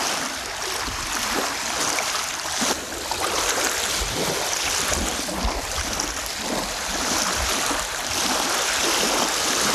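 Storm waves washing in on a reservoir, with wind gusting against the microphone as uneven low rumbles.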